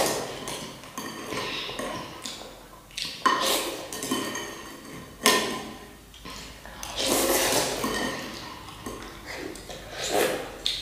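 Metal spoon and chopsticks knocking against ceramic noodle bowls: several clinks a second or two apart, each with a short ringing tone, with softer clatter in between.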